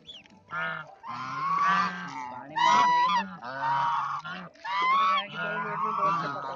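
White domestic geese honking, several birds calling over one another in repeated bouts with short pauses between.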